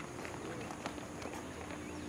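Scattered footfalls of a group of children jogging on an asphalt road, a few separate steps rather than a steady patter. A small bird chirps repeatedly in the background.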